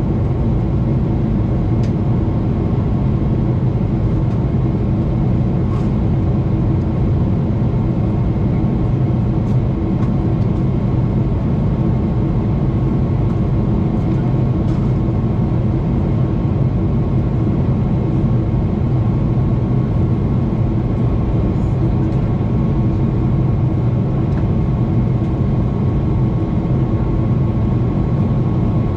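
Steady cabin noise inside a Boeing 777-300ER beside the wing: the GE90 turbofans' deep hum mixed with the rush of airflow over the fuselage, with a faint steady tone above it.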